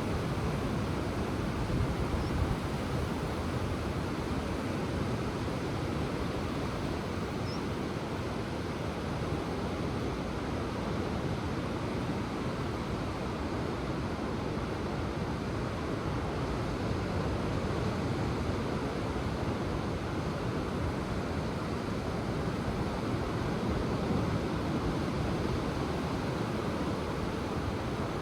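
Ocean surf: waves breaking and washing in as a continuous rush, swelling slightly now and then.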